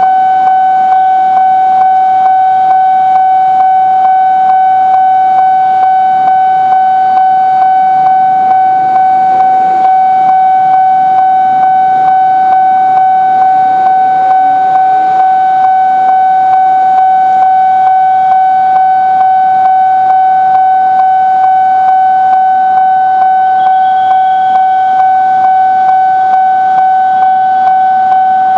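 Railway level-crossing warning alarm sounding continuously: one loud steady electronic tone that pulses in a fast, even beat, warning that a train is coming.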